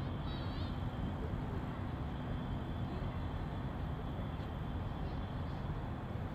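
Steady urban outdoor ambience: a continuous low rumble with faint voices, and a brief high chirp just after the start.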